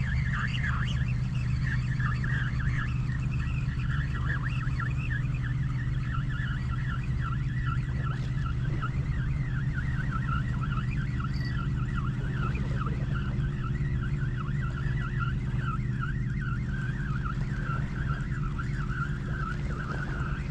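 A steady low hum, with a busy twittering of quick high chirps over it.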